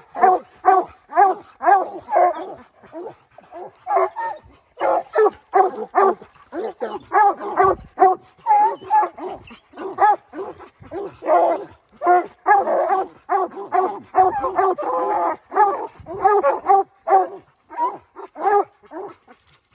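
Coonhounds barking treed at the base of a tree: a black-and-tan and a redbone giving short, rapid chop barks, several a second, with hardly a pause. One of the hounds sounds hoarse and rough, from the illness he was sick with at the time.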